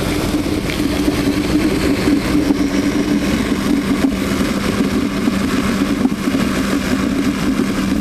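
Dodge Ram 1500 pickup's engine idling under the open hood, a steady, even hum.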